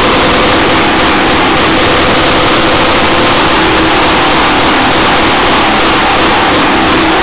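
Antique Jacobsen two-stroke engine running steadily.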